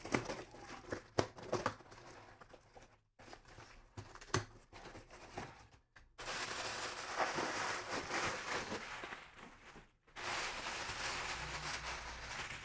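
Box cutter scraping through packing tape and cardboard being handled, in scattered scratchy scrapes and clicks; from about six seconds in, continuous crinkling of plastic air-cushion packing wrap being pulled from the box.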